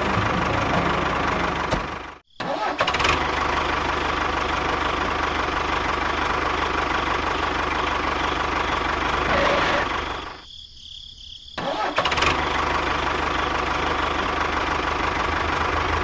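Steady engine-like running of a mini tractor's motor, with a constant hum. It cuts out abruptly for a moment about two seconds in and again for about a second just past the middle, then resumes.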